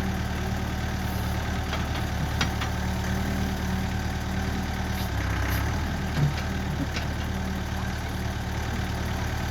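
Backhoe's diesel engine idling steadily, with a few short clicks.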